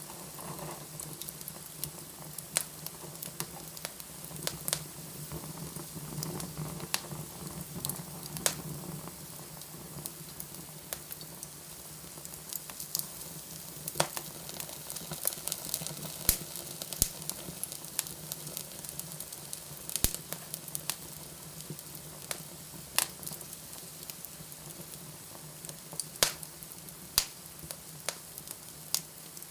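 Fire burning in a fireplace: irregular sharp crackles and pops over a steady hiss.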